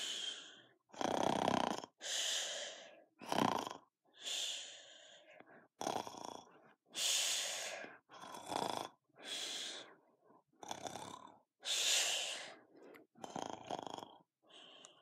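A person snoring and breathing heavily in sleep: a loud, noisy breath roughly every second, with short pauses between.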